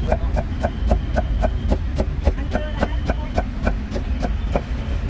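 Cleaver chopping meat on a wooden chopping block in a quick, even run of about four strokes a second, stopping shortly before the end, over a low rumble of traffic.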